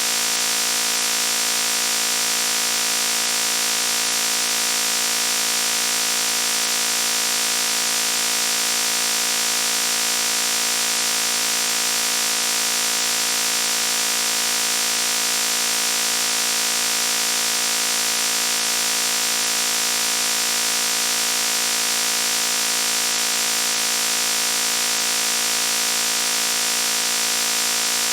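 Loud, harsh buzzing noise held at one unchanging pitch, rich in overtones, with no breaks.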